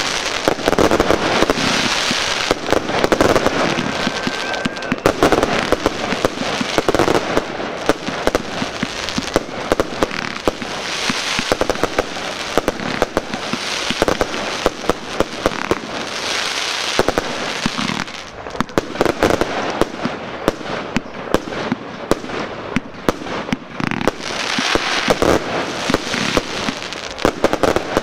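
Fireworks going off without a break: a dense run of bangs and crackling from aerial shells and rising comets, one after another.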